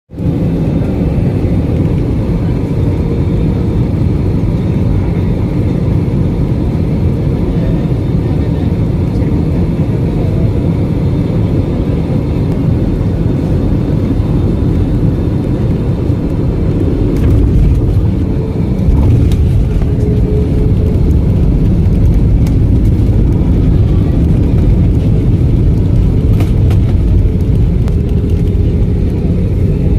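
Aircraft landing: a steady low rumble that grows a little louder past the middle, with a few faint clicks.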